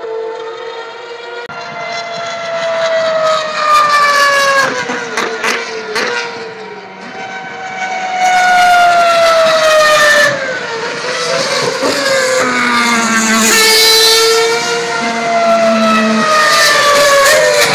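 2012 Formula 1 cars' 2.4-litre V8 engines at very high revs going past one after another, a high-pitched scream that climbs and drops with each gear change and falls in pitch as each car goes by.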